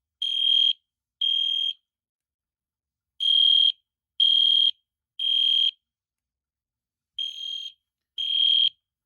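Edwards Genesis electronic fire alarm horn sounding a high, steady beep in the temporal-three evacuation pattern: three half-second beeps about a second apart, then a pause, repeating.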